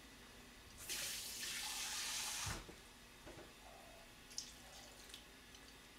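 Kitchen tap running into a small bowl for about two seconds, filling it with water to top up a pot of soup, then shutting off.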